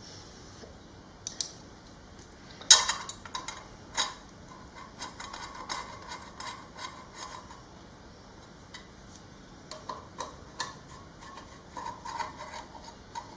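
Metal parts clinking and knocking as a cover and its screws are handled and fitted back onto a 1978 Suzuki TS125 motorcycle. There is one sharp clank about three seconds in, then runs of small ticks and light metallic rattling.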